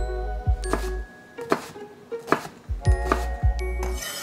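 Kitchen knife chopping onion on a wooden cutting board: sharp knocks about once a second, over background music with a deep bass line.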